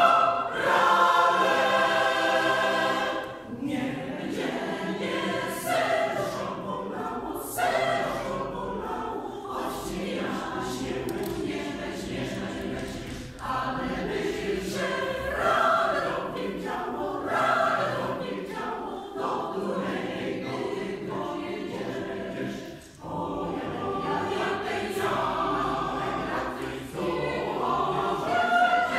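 Mixed choir of women's and men's voices singing, opening on a loud held chord that breaks off after about three seconds, then going on in quieter phrases.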